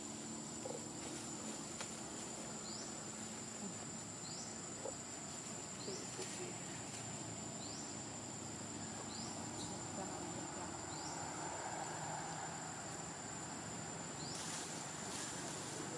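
Steady high-pitched insect drone from the surrounding forest, with a short rising chirp repeating about every one and a half seconds.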